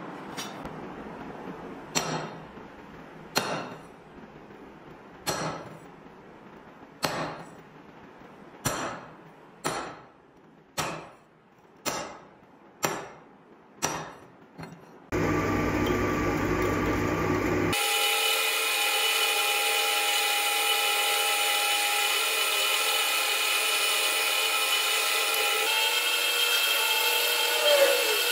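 About ten sharp metallic taps, one every second or two, typical of a hammer driving a center punch into a leaf-spring steel knife blank to mark the hole positions. Then a bench drill press runs steadily with a constant motor hum, drilling through the blank.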